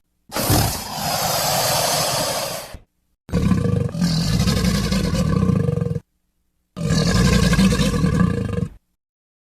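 Three separate roars of an animated carnivorous dinosaur, the Canyon Sharptooth, played as sound effects. Each roar lasts about two to three seconds, with dead silence between them.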